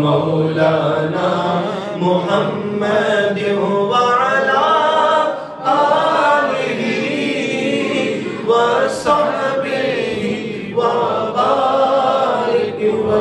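Unaccompanied Islamic devotional chanting by a male singer into a microphone, the voice sustained and ornamented, with a short break about five and a half seconds in.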